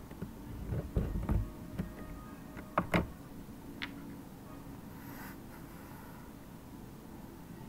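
A few computer keyboard key presses and mouse clicks: a cluster of taps about a second in, a sharper double click near three seconds, and a last click shortly after, over a low steady hum.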